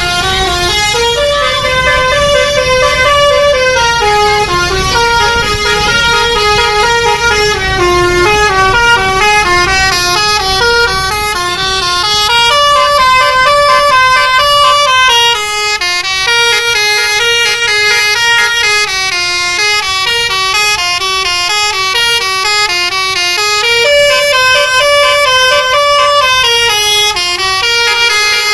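Indonesian bus telolet horn, a multi-tone horn playing a long unbroken run of stepping notes in a melody, over a low engine rumble that is stronger in the first half.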